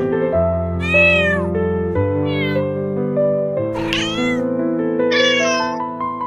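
A cat meowing four times, short high-pitched calls that rise and fall, over soft background music of sustained piano and string notes.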